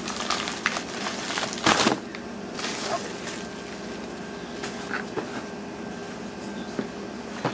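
Plastic shipping mailer being torn open and rustled by hand, with a loud sharp rip a little under two seconds in and another about a second later, then quieter handling of a cardboard mailing box.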